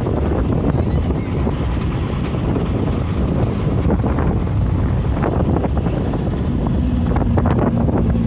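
Wind buffeting the microphone over the rumble of a moving vehicle, with small knocks and rattles throughout. A steady low hum joins near the end.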